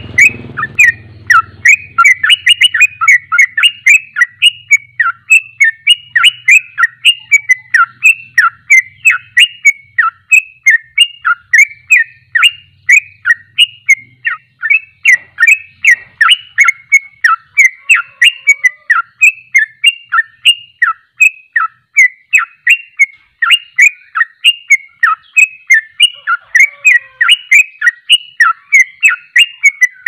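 Yellow-vented bulbul singing a fast, non-stop song: loud, short falling notes between about 1 and 3 kHz, repeated at roughly three a second without a break.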